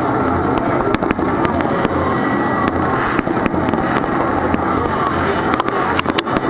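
Fireworks going off over a dense, continuous din: scattered sharp bangs and crackles, coming thick and fast in the last second or so.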